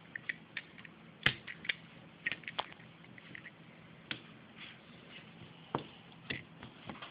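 Utility knife blade picking and scraping at the insulation layer on the back of a solar laminate while fingers pull it up off the bus bar: scattered small scratches and clicks, the sharpest about a second in.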